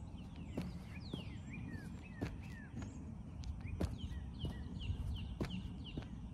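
Feet landing on artificial turf in repeated lateral hops, a short thud every half-second to second. Birds chirp in quick downward-sliding notes behind them.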